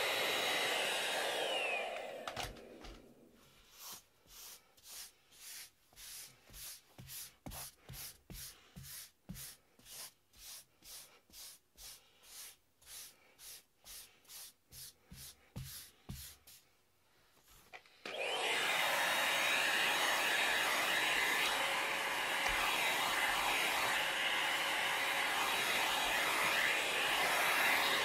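Vacuum cleaner running on carpet, cutting out about two seconds in. Then a rubber sponge pet-hair remover is scrubbed back and forth over the carpet pile, about two strokes a second for some fourteen seconds, pulling cat hair out of the carpet. The vacuum starts again and runs steadily through the last ten seconds.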